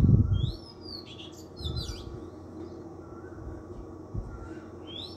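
Birds chirping in short, high, sweeping calls, in two spells, with a dull low thump right at the start.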